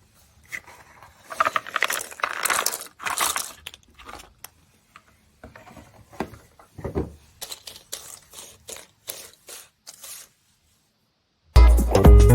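Cardboard jigsaw puzzle pieces being handled: a stretch of rustling and scraping, then a run of small clicks and taps as pieces are set down and fitted. Electronic music with a steady beat starts near the end.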